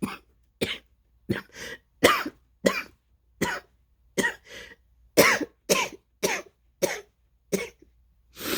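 A woman in a long coughing fit from a severe asthma attack, chest full of phlegm: a run of about a dozen short, harsh coughs, one every half second to second, some in quick pairs.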